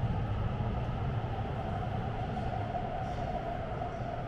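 Metro train running, a steady low rumble with a whine above it, slowly growing quieter.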